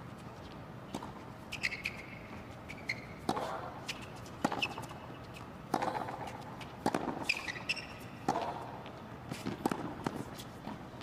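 Tennis rally on a hard court: tennis balls struck by rackets about once every second or so, with sneaker squeaks on the court surface between shots.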